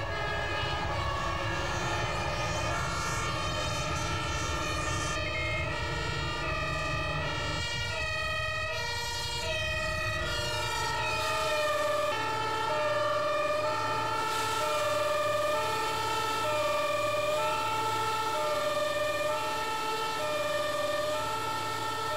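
Two-tone sirens of airport fire crash tenders, each alternating steadily between two pitches. At first several sirens overlap over heavy truck engine rumble; about halfway through one clear two-tone siren remains.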